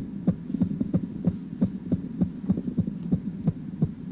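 Irregular heartbeat sound effect: quick, uneven low thumps, about four a second, over a steady low hum.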